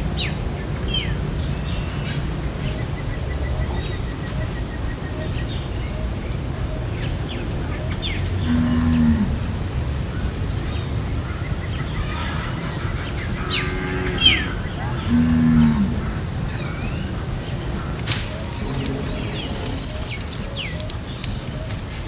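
Cattle lowing several times, each moo about a second long and dropping in pitch at the end. Small birds chirp briefly over a steady low rumble.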